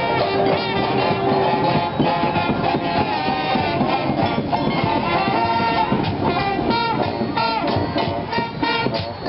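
Street brass band playing, many horns sounding together continuously.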